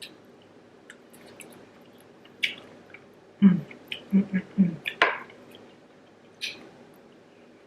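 Eating sounds close to the microphone: several short wet smacks and slurps, with a quick run of short hummed 'mm' sounds about halfway through.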